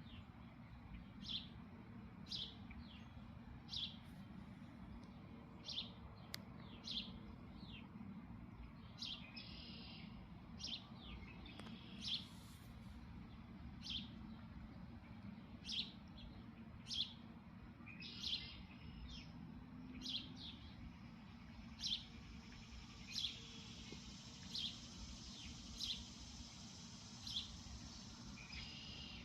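Small birds chirping: short, sharp high calls, several with quick falling sweeps, repeated every second or two over a steady low background rumble.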